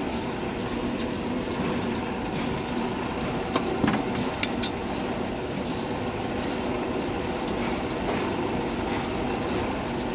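A machine running with a steady hum and rumble, with a few sharp clicks about four seconds in.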